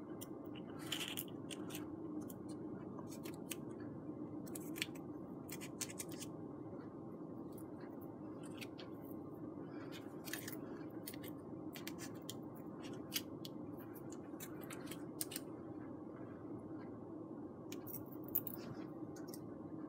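Steady low room hum with scattered small clicks and scratches, made as bent foamboard parts are held pressed together by hand while hot glue sets.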